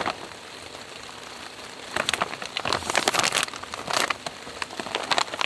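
Steady rain, with bursts of crinkling and crackling from plastic packaging being handled about two seconds in and again around four and five seconds.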